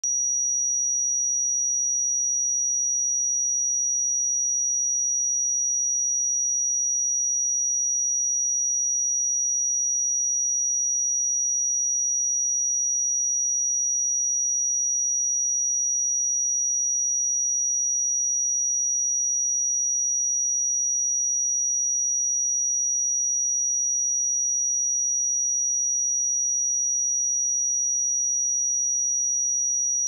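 A single pure 5784 Hz sine-wave test tone, held steady at one unchanging pitch and level.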